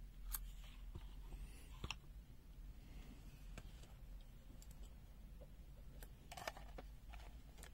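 A few faint clicks and taps of hard plastic as a handheld digital multimeter and its test leads are handled: one near the start, one about two seconds in, and a small cluster about six seconds in, over a low steady hum.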